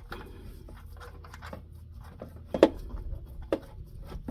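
Small clicks and scrapes of hands threading a drain-tube attachment onto a quick-drain oil valve under the truck, with a sharper click about two and a half seconds in and another about a second later. A steady low hum runs underneath.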